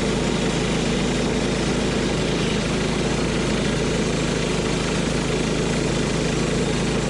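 Wood-Mizer LT10 portable bandsaw mill's small gas engine running steadily under power, its band blade driven through a log.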